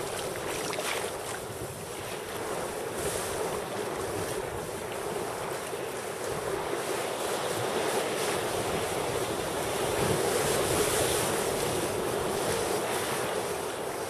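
Choppy sea surging and breaking around rocks, close to the water from a sea kayak's deck, with wind buffeting the microphone. A steady rush that swells a little about ten seconds in.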